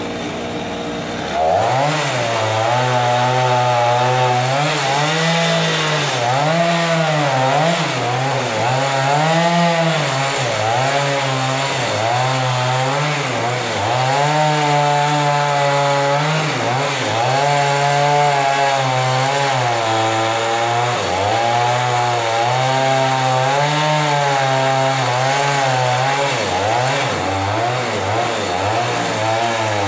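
Two-stroke chainsaw revved up about a second and a half in and cutting into a large log, its engine pitch repeatedly sagging and recovering as the chain loads up in the wood.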